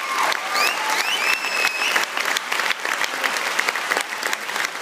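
Theatre audience applauding, dense rapid clapping from many hands, with a few high gliding cheers over it in the first two seconds.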